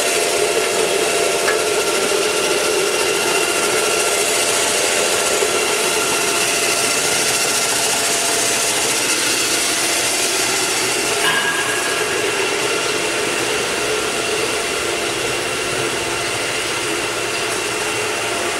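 Electric crusher running steadily with a constant whine over a grinding rush, breaking up chunks of pressed cocoa cake fed into its hopper.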